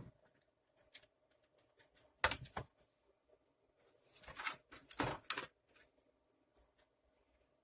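Plastic vacuum-cleaner parts being handled during disassembly: scattered light clicks and knocks, a short cluster of them a little over two seconds in, then a scraping rustle around four to five seconds in.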